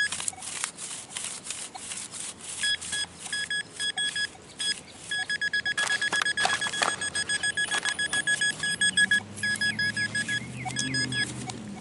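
Metal detector beeping in short repeated tones, which run into a fast, nearly continuous string about halfway through as it closes in on a buried target. Sharp scraping and crunching clicks from digging run through it, and a low rumble builds near the end.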